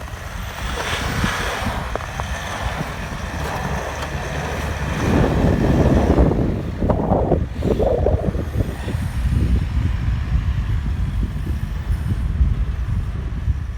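Off-road vehicle's engine working under load, growing louder about halfway through, with wind noise on the microphone.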